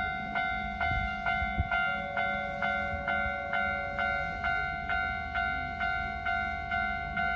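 Japanese level-crossing warning bell ringing steadily, about two strokes a second, with a low rumble of a Keihan electric train passing underneath.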